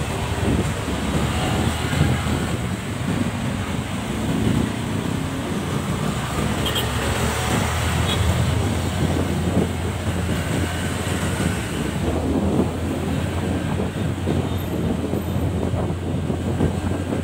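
Steady low rumble of road and traffic noise heard from a vehicle moving through city traffic, with wind on the microphone.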